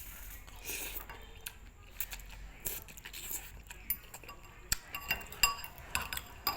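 Metal utensils clinking against dishes: scattered light clinks, coming thicker and faster in the last couple of seconds.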